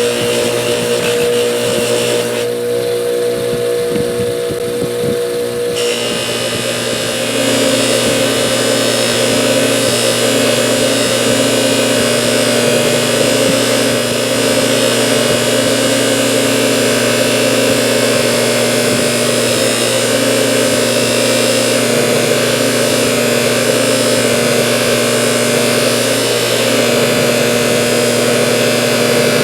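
Electric polisher motor running with a steady hum. About six seconds in, a harsher hiss joins as metal is worked against the abrasive fiber wheel.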